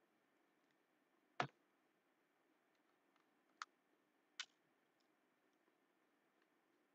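Near silence broken by three computer mouse clicks: one about a second and a half in, then two lighter ones close together a little past the middle.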